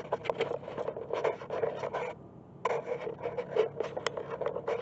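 Scratchy rubbing and scraping: a dense run of short rasping scrapes, with a brief break a little over two seconds in.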